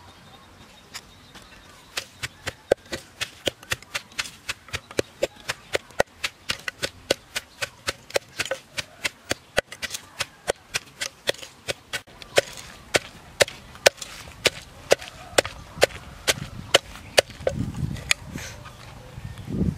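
Wooden pestle pounding chili paste in a wooden mortar: steady sharp knocks, about two to three a second, starting about two seconds in. Near the end the knocking gives way to a lower rubbing sound as a spoon stirs the paste.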